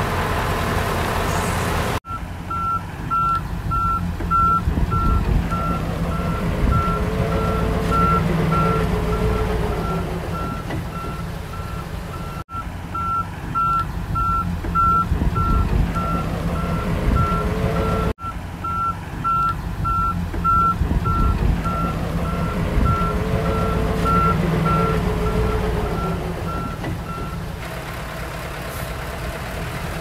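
A heavy diesel engine running under load with a reversing alarm beeping steadily over it, likely from the D31 bulldozer backing up. The engine note swells and falls back several times. The beeping stops near the end, and the sound breaks off abruptly a few times.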